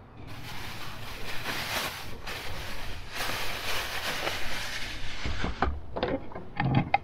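Thin plastic bag rustling and crinkling as the leftover green pepper is bagged, then a few sharp knocks of a knife on a wooden cutting board near the end.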